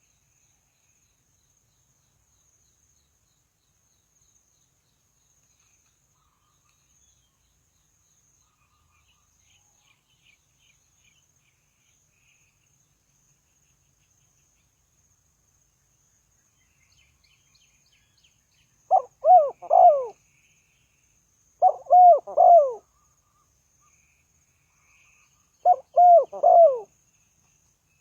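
Spotted dove cooing: three phrases of three low, rounded notes each, coming in the last third at a few seconds' spacing. Before them only faint distant chirps and a faint steady high insect whine.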